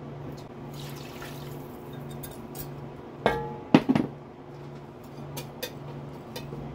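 A glass measuring cup clinks and clatters against a pot a little past halfway as water is poured into leftover gravy, then a wire whisk taps and scrapes lightly in the pot. A low pulsing hum sits underneath.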